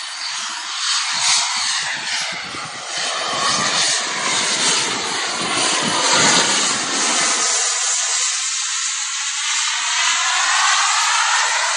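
Small jet engine of a radio-controlled model jet flying low passes: a high whine and rush with no deep rumble, swelling and sweeping in pitch as the aircraft passes and turns.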